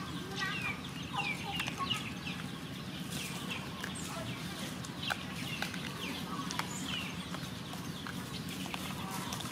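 Scattered short chirping and clucking animal calls, with a few sharp clicks, over a steady low background hum.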